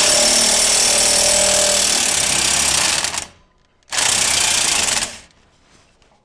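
Impact wrench hammering on the centre bolt of a lawnmower's PTO clutch to break it loose, in two bursts: one of about three seconds, then after a short pause one of about a second.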